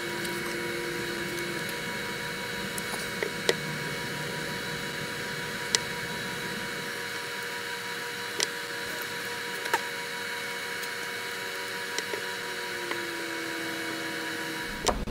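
Steady hiss and hum with several thin whining tones from a camera's faulty audio, with a few sharp, isolated clicks of small metal parts being handled while an RC scale axle's ring gear is fitted.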